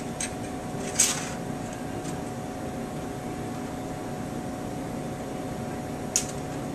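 Steady room hum with a utensil clicking against the pie dish twice, once about a second in, the louder of the two, and again near the end, as a slice of pie is cut and lifted out.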